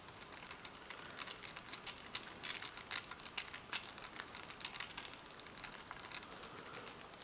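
Light, irregular metallic clicks and scraping as a screwdriver tip works against a Remington Model 8 rifle's receiver while the bolt is fitted back in. The clicks come thickest in the middle and thin out near the end.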